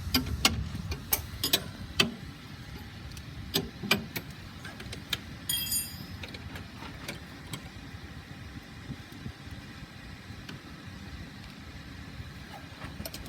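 Sharp metallic clicks and clinks of thrust-reverser latch and turnbuckle-stay hardware being handled, several in the first four seconds, with a short ringing clink near six seconds. A steady low hum runs underneath.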